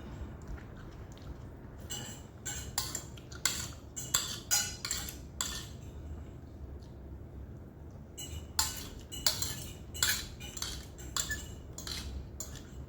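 Cutlery clinking and scraping against a plate while eating, in two runs of quick, sharp strokes.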